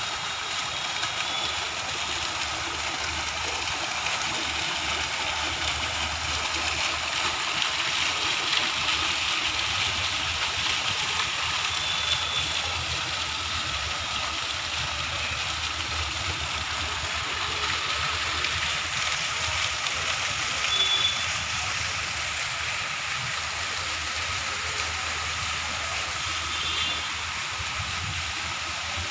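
Decorative fountain's water jets splashing into their basin: a steady rush of falling water, with a low hum underneath and a few faint, short high chirps.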